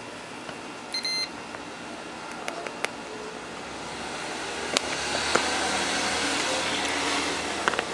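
A short electronic beep about a second in, from a digital multimeter being used on a blade fuse, with a few light clicks from the probe tips. A hiss swells over the second half and fades near the end.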